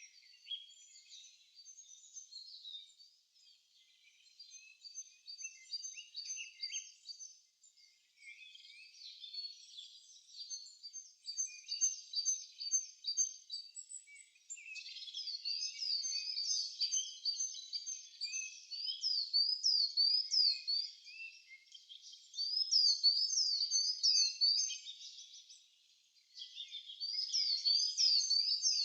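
Songbirds chirping and singing, many short overlapping calls. About halfway through, a louder bird begins singing phrases of quick, repeated rising-and-falling whistled notes, and sings them again near the end.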